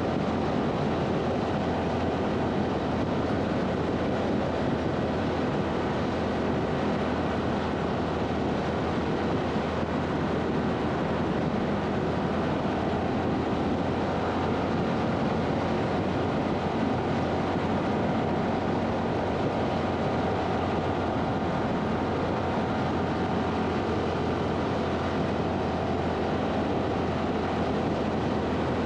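Honda Super Cub's small single-cylinder four-stroke engine running at a steady cruise, mixed with the rush of wind and tyre noise on the bike-mounted microphone. There is no shifting or revving, only an even drone.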